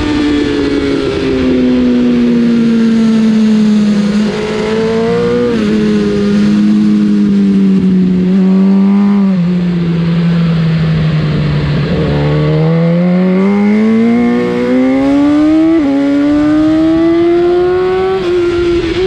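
BMW S1000 RR inline-four engine running hard on track: the revs fall over the first ten seconds or so, then climb steadily from about twelve seconds, broken twice near the end by quick upshifts.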